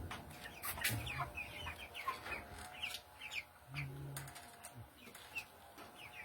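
A flock of broiler chickens clucking and peeping, many short calls overlapping, with a few sharp clicks among them.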